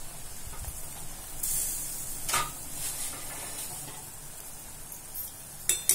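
Thick potato bhaji gravy bubbling in a steel kadai as a steel ladle stirs it, with a sharp clink of the ladle against the pan about two seconds in and again near the end.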